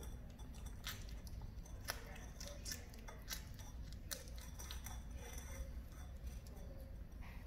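Calico kitten eating weaning food from a small dish, chewing eagerly with irregular sharp clicks.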